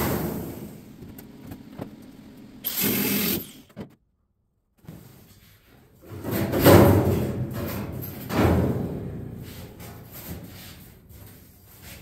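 Cut-off sheet-metal roof of a 1953 Chevy truck cab being worked loose and handled: hollow sheet-metal clunks and rattles that ring on. The loudest comes about six and a half seconds in and another about two seconds later. A steady noise dies away in the first second.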